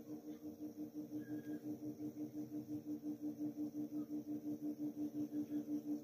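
A low steady hum that pulses evenly about six or seven times a second, slowly getting louder.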